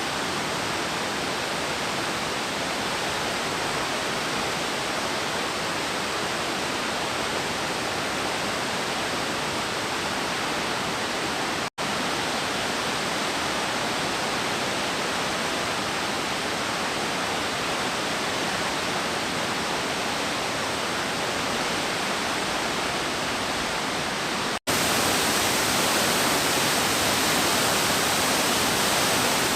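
Nugget Falls waterfall pouring: a steady, unbroken rush of falling water. It cuts out for an instant twice and comes back a little louder after the second break, near the end.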